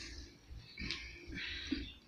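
People eating rice and chips by hand, with a few short hissy noises and a light click.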